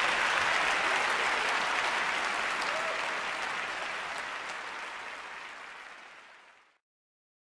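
Large audience applauding, the clapping fading away steadily and cutting off to silence near the end.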